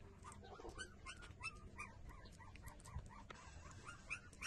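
Newborn puppies squeaking and whimpering while they nurse: a faint, rapid run of short high squeaks, several a second.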